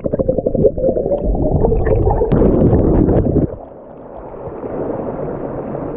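Muffled churning and gurgling of river water as a person gets into a shallow pool. It is loud and dense for about three and a half seconds, then drops to a steadier, quieter rush of water.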